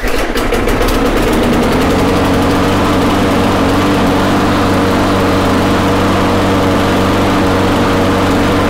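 Briggs & Stratton lawn mower engine catching at once and running steadily at its governed speed, which the owner judges about right, if a touch low, after bending the governor linkage.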